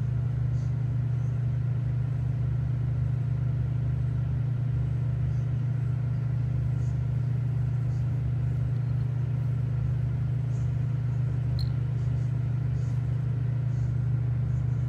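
A cat purring close to the microphone: a steady, low, even rumble.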